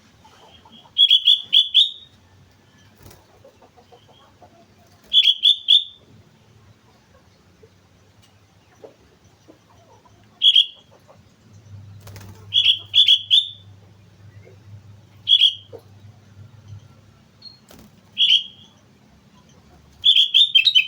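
Sooty-headed bulbul (kutilang) singing: short phrases of loud, clear whistled notes in clusters of one to four, repeated every few seconds.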